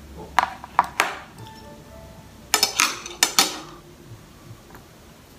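Chopsticks clinking against a ceramic plate: a few single clicks, then a quick cluster of sharper clacks about two and a half seconds in.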